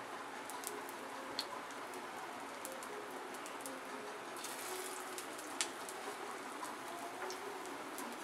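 Potato patty (aloo tikki) shallow-frying in a little oil on a hot griddle (tava): a steady sizzle with scattered sharp pops, the loudest a little past halfway.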